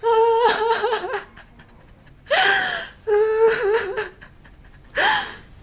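A woman laughing and whimpering through tears, in four short bursts: two high-pitched wavering cries and two short breathy gasps that fall in pitch.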